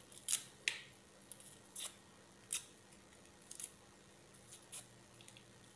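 Kitchen knife scraping and nicking the papery skin off a garlic clove: a string of short, sharp scrapes at irregular intervals.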